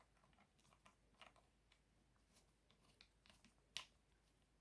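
Near silence with faint, scattered clicks and taps of plastic parts being handled and fitted together, the sharpest a little under four seconds in.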